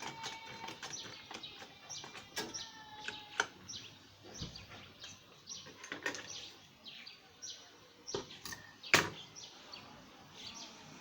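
Birds chirping over and over in short, irregular calls, with a few sharp clicks or knocks, the loudest about nine seconds in.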